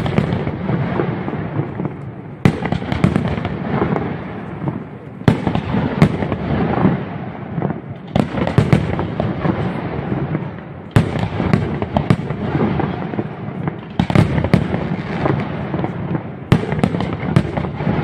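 Aerial firework shells bursting one after another, a sharp bang every one to three seconds, over continuous dense crackling.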